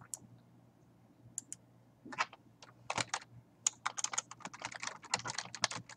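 Typing on a computer keyboard: one click at the start, then a quick run of keystrokes from about two seconds in as a word is typed.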